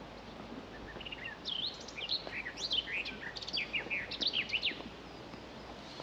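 A songbird singing a rapid, varied phrase of short, high, sweeping notes, starting about a second in and stopping about a second before the end, over a steady background hiss of open air.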